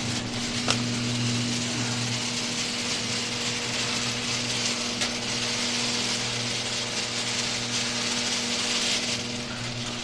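Electric garage door opener closing a sectional overhead garage door: the opener's motor hums steadily while the door's rollers rattle along the steel tracks. It starts suddenly, with a sharp click under a second in.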